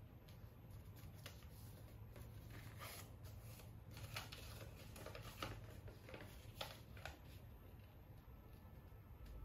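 A sheet of paper being folded and creased by hand: faint rustling with scattered crackles, a few sharper ones around the middle.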